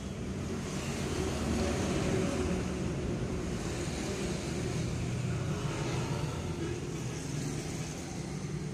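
Steady motor-vehicle traffic noise, a continuous rumble with a low engine hum, swelling slightly from about one to three seconds in.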